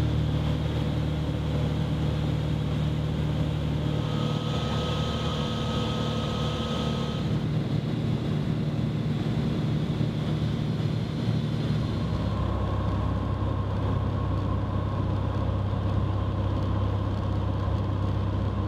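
Light aircraft's piston engine and propeller droning steadily, heard from inside the cabin. Its tone shifts about four seconds in and again about twelve seconds in.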